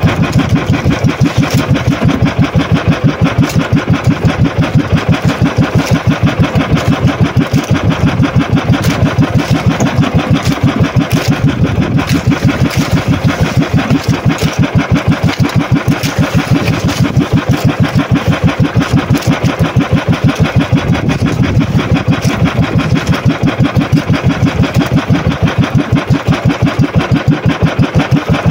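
Outrigger fishing boat's engine running steadily under way, with an even, rapid throb.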